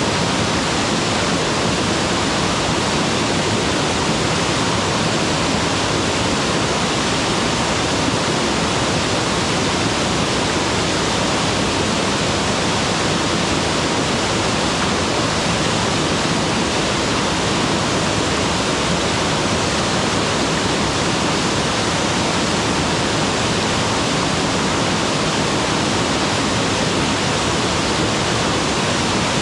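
Mountain waterfall pouring steadily, a loud, even rush of falling water with no breaks or changes.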